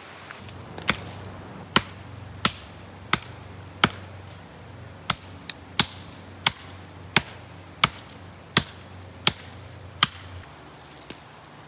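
Axe blows chopping into a fallen dead branch: about fourteen sharp strikes at a steady pace of roughly three every two seconds, stopping about ten seconds in.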